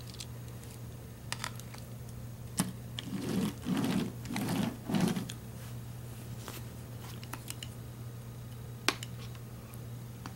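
Scattered small taps and clicks of a baby handling painting things (a paint bowl, brush and toy car on a paper-covered board), with a cluster of rubbing and scraping about three to five seconds in, over a steady low hum.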